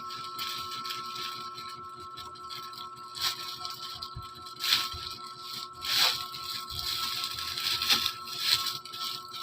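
Plastic parcel packaging crinkling and crackling in irregular bursts as it is handled and torn open.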